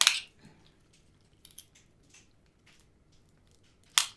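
Close-miked eating and handling of a seafood boil of crab and lobster: a sharp snap at the start and another near the end, with a few faint clicks in between.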